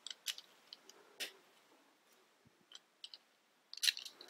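Plastic Mega Bloks building bricks clicking as they are handled and pressed together: a few scattered light clicks, the loudest near the end.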